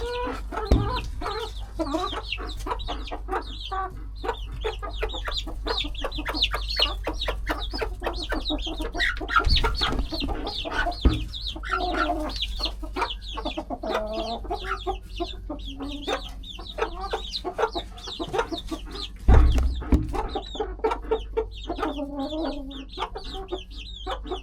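Chickens clucking in a coop, with many quick high peeps from young chicks running through it. There are a few dull thumps, the loudest about twenty seconds in.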